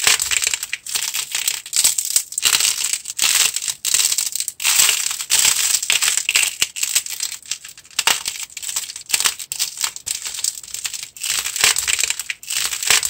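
A sculpted face of hardened modelling clay cracking and crunching as fingers press and squeeze it: a dense, irregular crackle that comes in quick bursts.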